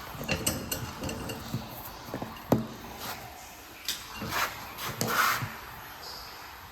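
Irregular clicks and knocks of the metal tools from a tire plug kit being handled and worked into a tyre puncture, with one sharp knock about two and a half seconds in.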